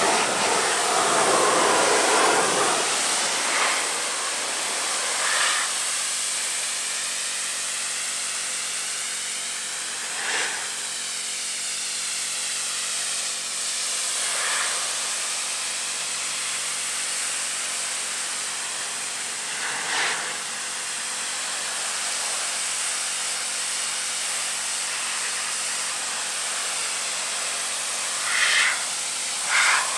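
Pressure washer jet spraying a car's door and sill: a steady hiss of high-pressure water, with a faint even hum underneath. The spray briefly gets louder a few times as the jet moves over the panel, twice near the end.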